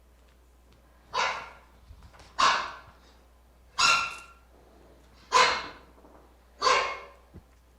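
A pinscher barking: five short, sharp, high barks spaced about a second and a half apart.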